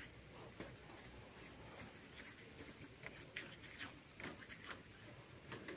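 Faint, irregular brushing and scraping of a paintbrush working paint onto a metal gate rail and its chain-link mesh, in short separate strokes.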